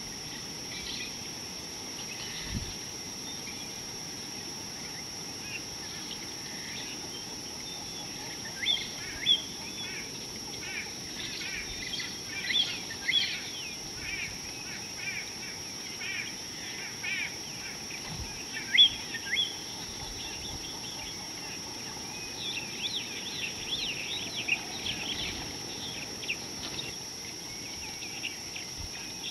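Small birds chirping and calling in many short, quick notes, sparse at first and busiest through the middle and again near the end, over a steady high-pitched tone and an even outdoor hiss.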